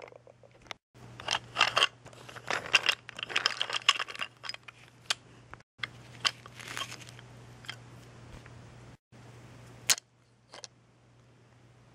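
Wooden toy engine and wagon clattering and knocking against each other and the wooden track as they are handled and tipped over, a run of quick clicks and taps. Near the end, two single clicks over a faint steady hum.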